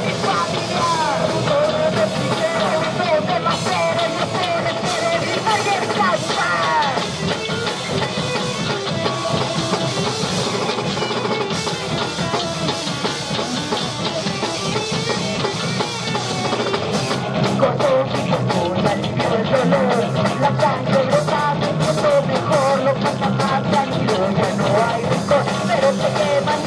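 Punk rock band playing live: electric guitar and drum kit with a singer. About two-thirds of the way in, the drums and cymbals come in harder.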